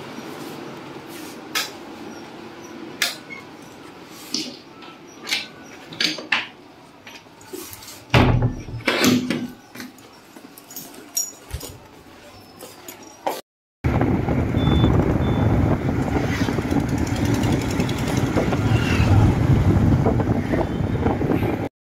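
Scattered clicks and knocks from handling and moving about, with a louder cluster of knocks about eight seconds in. After a cut about two-thirds of the way through, a Royal Enfield motorcycle is riding on the road, its engine and road noise forming a steady low rumble.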